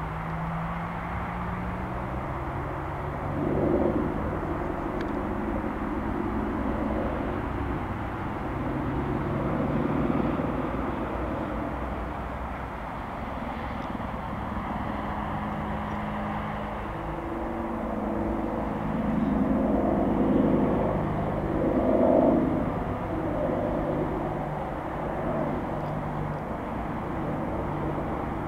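Distant AH-64D Apache helicopter in flight: a steady drone of its rotors and twin turboshaft engines, swelling louder several times as it manoeuvres, most strongly about twenty seconds in.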